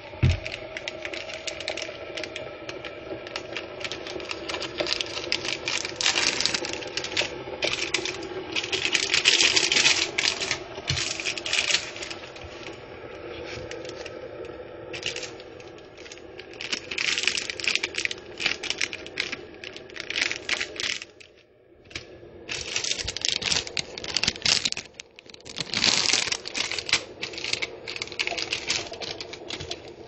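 Electric coffee machine brewing, with irregular bursts of hissing and rapid rattling sputter over a steady low hum.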